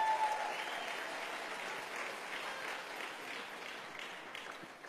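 Audience applauding, dying away gradually.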